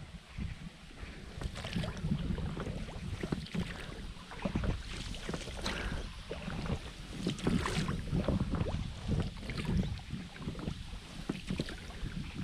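Water splashing and sloshing around a small boat, with irregular light knocks and scrapes, over a low wind rumble on the microphone.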